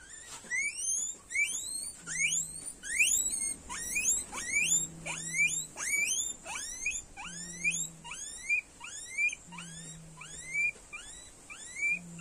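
Guinea pig squealing over and over in short, rising, high-pitched squeaks, about two or three a second, in distress as it is held and injected under the skin.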